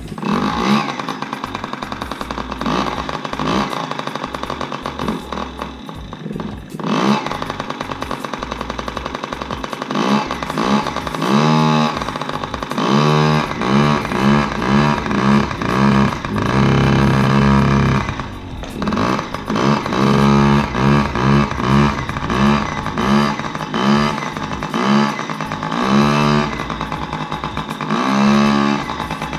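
Yamaha PW50's small two-stroke single-cylinder engine fires up on the kick-start and runs, revved up and down in repeated blips, running again after its carburettor clean.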